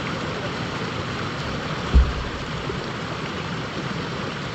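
River water rushing steadily over a shallow riffle. A single brief low thump about two seconds in.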